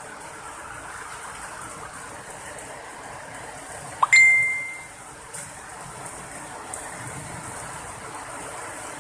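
Rain and hail falling steadily on wet concrete, a constant hiss. About four seconds in, a single loud metallic ding rings out and fades within a second.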